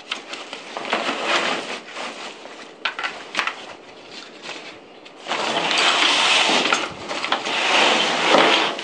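Stiff, crinkly pack fabric rustling and crackling as a helmet is stuffed into a canyoneering backpack and the pack is handled, with small clicks of hard gear. The rustling gets much louder a little past halfway as the pack is lifted and stood upright.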